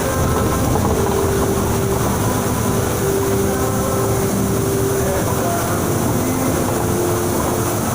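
Transjakarta bus running at speed in heavy rain: steady engine and road noise, with a whine that holds one pitch.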